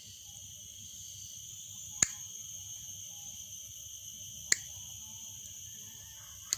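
Crickets chirping steadily, with three sharp clicks spaced about two seconds apart as a broken motorcycle kickstand spring is bent with pliers.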